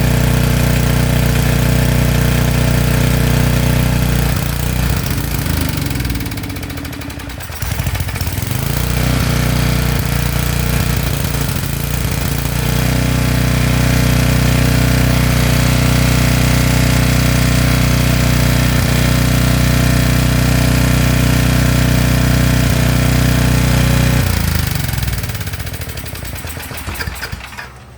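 Portable generator's small gasoline engine running on a little fuel poured into its carburetor. It sags and nearly dies about five seconds in, picks back up and runs steadily, then winds down and stops near the end. The owner judges the carburetor done for: its rubber gasket is ripped and it leaks.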